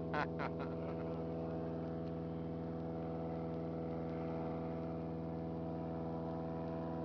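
An airboat's engine and propeller running steadily, a constant many-toned hum that neither rises nor falls. Near the start two short, sharp sounds come about a quarter second apart over it.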